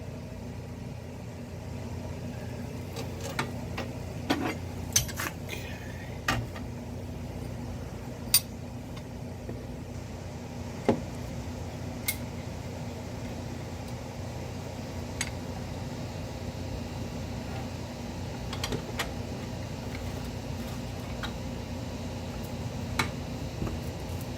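Scattered sharp metallic clinks and taps of hand tools and a C-clamp on a brake caliper while the caliper piston is pressed back in, over a steady low hum.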